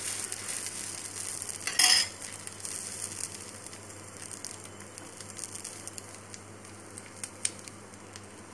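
Egg-soaked bread slice sizzling and crackling on a hot cast-iron griddle. There is a brief louder burst of sizzle about two seconds in, and then the frying slowly dies down.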